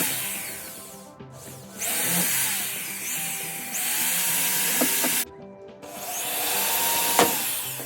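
A power tool working wood, run in three bursts of a second or two each that stop abruptly, over background music.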